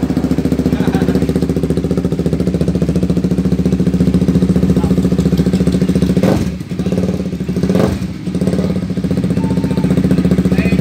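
KTM Duke 390's single-cylinder engine idling steadily, freshly refilled with oil. A little over six seconds in, its note dips and wavers for about two seconds, then settles back to the same steady idle.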